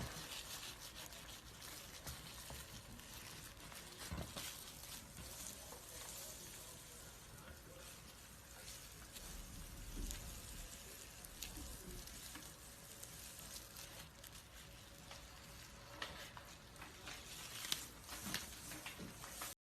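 Faint dry crackling and rustling with scattered small clicks: a snake's old skin peeling and crinkling as it sheds. The sound cuts out for an instant just before the end.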